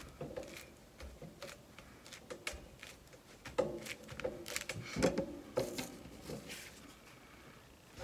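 Crumpled tissue rustling and rubbing over a glued paper collage, with scattered light paper handling clicks and a few soft knocks on the cutting mat.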